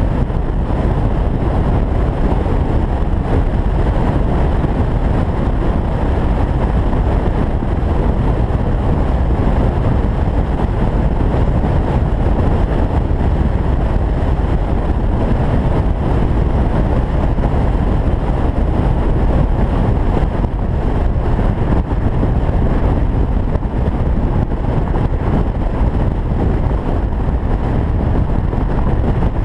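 Steady rush of wind on the microphone and road noise from an open-top convertible cruising at highway speed, a deep, even roar with no changes.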